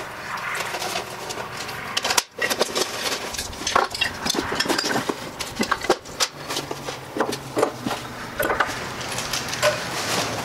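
Unpacking and handling sounds: packing paper rustling, with scattered knocks and clinks as metal tools and parts are set down on a wooden sawhorse bench.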